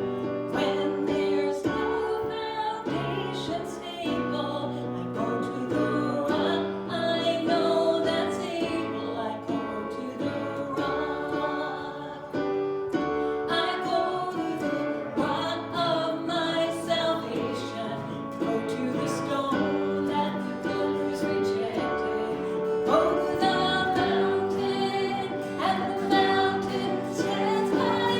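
Worship song in a church service: singing with instruments playing along.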